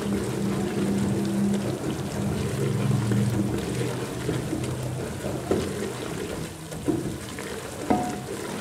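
Onion and ginger-garlic paste sizzling in hot oil in a metal pot while a spatula stirs and scrapes round it, with a few sharp knocks of the spatula against the pot in the second half.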